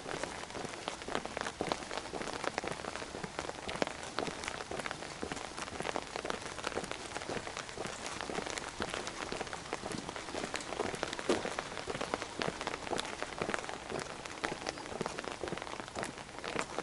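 Rain pattering: a steady, dense run of irregular small ticks.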